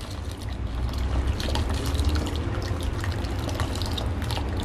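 Custard paste trickling in a thin stream into a pot of hot milk while a slotted spatula stirs it, the milk swishing, with faint scattered ticks. A steady low rumble runs underneath.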